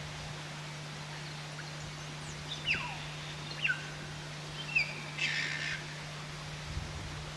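Wild birds calling: several short, quick falling whistles spaced about a second apart, then a brief harsh chatter, over a steady low hum.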